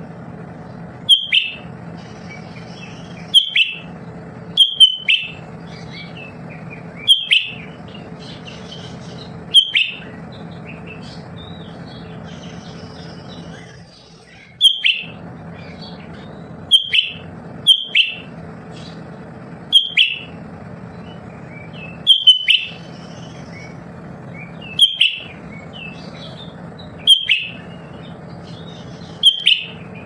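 Caged cucak ijo mini (a green leafbird) calling: a sharp, loud, high chirp with a quick falling tail, repeated roughly every two seconds, some doubled, with a longer pause about halfway. A steady low hum runs underneath.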